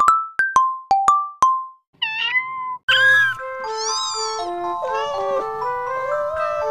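A quick run of short plucked notes, then a cat meows about two seconds in, and a light, bouncy background tune starts about a second later with more meow-like calls over it.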